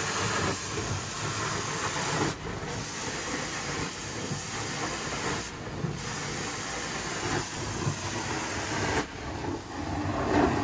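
Hot water extraction cleaning wand working carpeted stairs: a steady hiss of spray and vacuum airflow through the wand, broken briefly three times as the strokes change.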